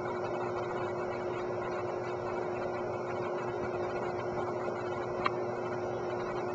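Steady machine hum with one constant low tone, broken by a single short click a little past five seconds in.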